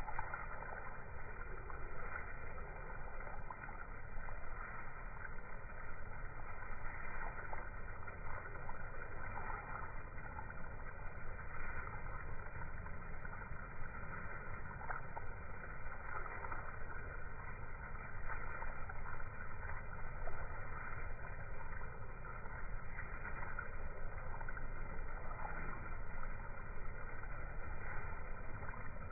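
Water spraying from a garden hose onto a lawn, slowed down with the slow-motion footage into a steady, low, muffled rush with no high end.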